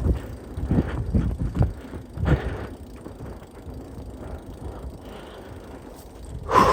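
Mountain bike riding over a dirt trail: irregular thumps and rattles of the bike over bumps, easing to a quieter roll in the middle, with a louder burst near the end.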